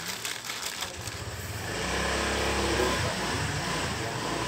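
Plastic bag crinkling under a hand sorting small parts, then a low engine rumble that swells in about a second and a half in and holds steady, louder than the crinkling.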